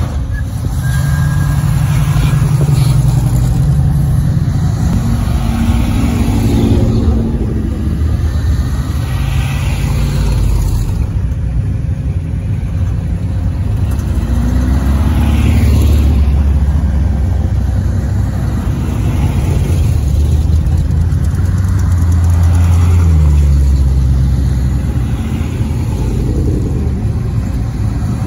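Classic cars and trucks driving slowly past one after another, their engines running with a low rumble that swells and fades as each goes by. It is loudest in the second half.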